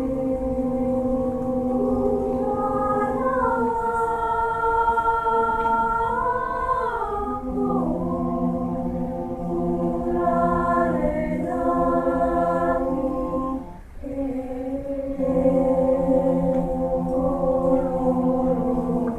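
Choir singing in several parts, holding long sustained chords that shift pitch together, with a brief break for breath about two-thirds of the way through.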